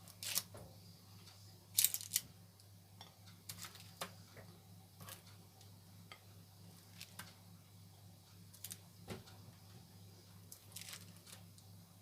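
Scattered light clicks and taps of kitchen handling, sharpest just after the start and in a quick cluster about two seconds in, over a steady low hum.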